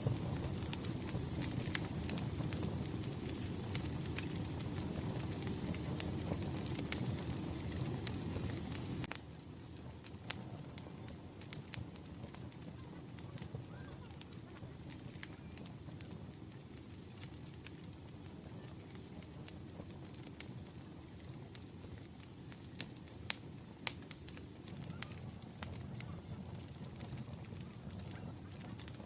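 Wood fire crackling and popping with sharp irregular snaps; the whole sound drops suddenly to a quieter level about nine seconds in.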